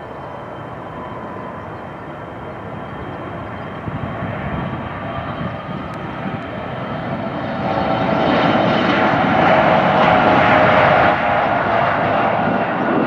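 CRJ regional jet's two rear-mounted turbofan engines running as it rolls along the runway, a steady jet noise with a thin whine. It grows louder as the jet passes and peaks about two-thirds of the way through.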